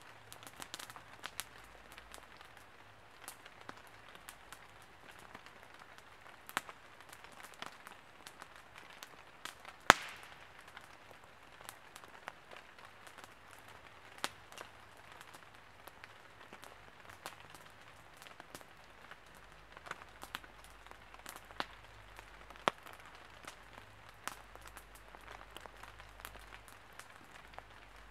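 Small campfire, lit with fir resin, crackling over a soft hiss, with irregular sharp pops and snaps and one much louder snap about ten seconds in.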